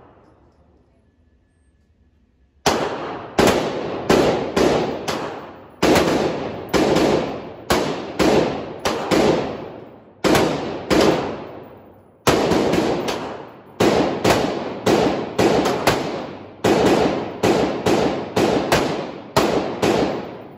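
Gunshots at an indoor shooting range. After a couple of seconds of quiet, a long string of about thirty single shots fires at an uneven pace of one or two a second, each crack ringing off the range walls as it fades.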